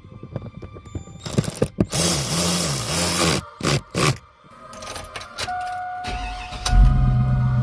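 Music with sharp hits and bursts and a low warbling tone, turning about six seconds in into a loud, steady low drone with held tones.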